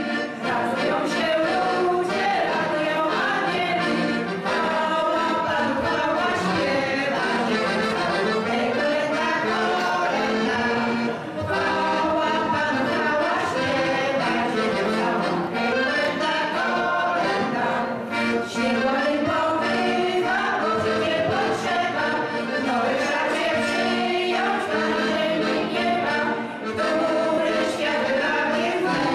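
A women's folk singing group sings a Polish Christmas pastoral carol together, with accordion accompaniment. Short breaks between phrases come about every seven seconds.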